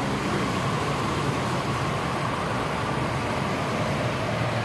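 O-scale two-rail model of the Baltimore & Ohio "Columbian" passenger train running past on the layout track: a steady running noise that holds level throughout.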